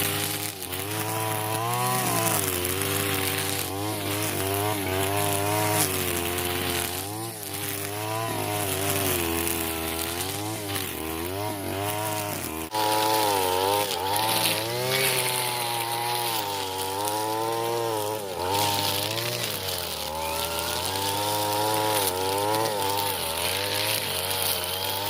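Brush cutter (grass-cutting machine) engine running at high revs while cutting weeds, its pitch rising and falling over and over as the cutting head meets and clears the grass.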